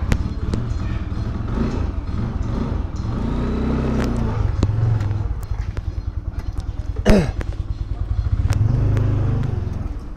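Motorbike engine running while riding, its low pulsing swelling twice as it picks up speed. About seven seconds in there is a short, loud sound that slides down in pitch.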